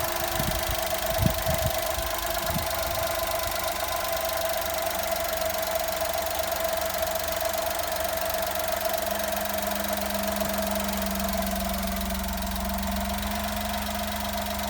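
Honda Vamos three-cylinder engine idling with a low droning hum from a faulty alternator. After a few knocks near the start, the drone drops out and comes back about ten seconds in, in keeping with the alternator being the source: the noise goes away when its connector is unplugged.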